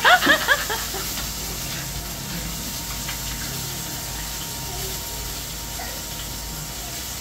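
Oil sizzling steadily around a large snakehead fish (dalag) frying in a pan.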